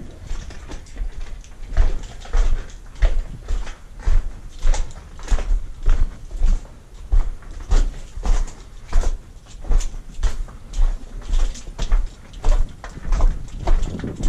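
Footsteps over rock and loose stones, a steady walking rhythm of about one and a half steps a second, each step a low thump with a crunch.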